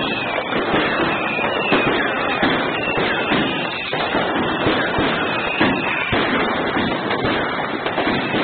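Many fireworks going off together: a continuous dense crackle of pops and bangs, with a few faint whistles.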